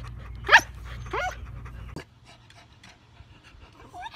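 Bernese mountain dog puppy giving two high-pitched yelping barks, about half a second and a second in. The sound drops to a much quieter background about two seconds in.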